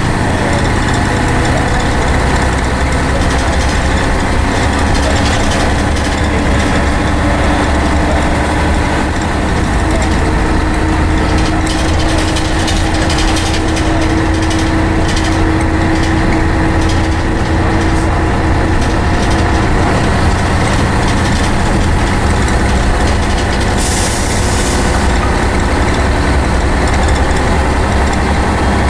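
Scania N113CRB bus on the move, heard inside the cabin: the rear-mounted 11-litre straight-six diesel and Voith automatic gearbox drone steadily, with a steady whine through the middle. A short hiss of air from the air brakes comes near the end.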